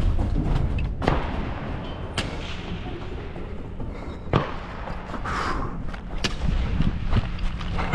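About five sharp gunshots spread irregularly, not very loud and not from the camera wearer's own gun, over a steady low rumble of movement against a body-worn camera.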